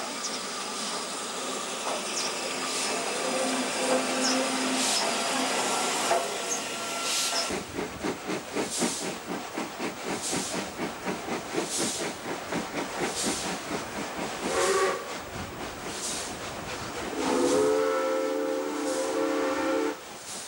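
Steam locomotives at speed heard from an open carriage window, with LNER A3 Flying Scotsman 4472 working alongside: a steady rushing hiss that gives way, about a third of the way in, to a rapid chuffing exhaust beat. A steam whistle sounds briefly, then again in a longer, chord-like blast near the end.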